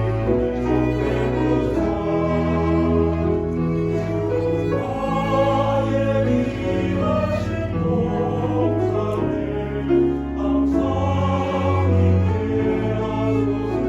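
Church choir singing a sacred anthem in several parts, holding notes over a low accompaniment.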